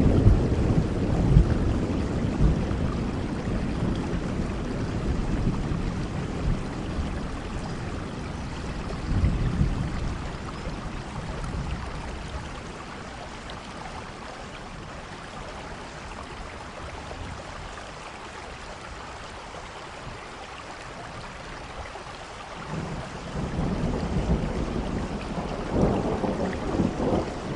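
Steady rain with rolling thunder. A low rumble dies away over the first several seconds, a short one comes about nine seconds in, and another swells up near the end.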